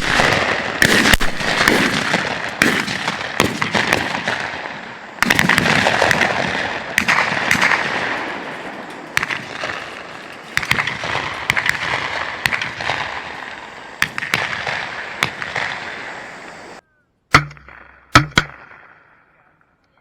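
A rapid, overlapping volley of shotgun fire from several hunters shooting at a flock of incoming doves, dozens of shots with rolling echoes between them. Near the end it cuts off abruptly, then two more loud shots follow less than a second apart.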